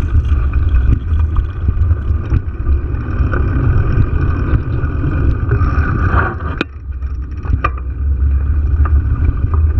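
Wind rumble on the microphone of a bike-mounted GoPro, mixed with tyre noise over cracked asphalt, with a few sharp clicks and rattles from the bike. The rumble eases briefly about two thirds of the way in.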